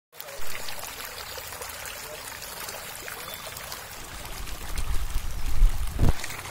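A dense school of tilapia churning the pond surface in a feeding frenzy: a steady mass of small splashes and slaps of water. A low rumble swells about two-thirds of the way through.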